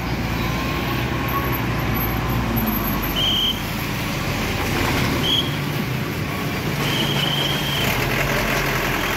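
Diesel engine of a loaded Mitsubishi dump truck running as it drives past close by, with three short high squeals about three, five and seven seconds in.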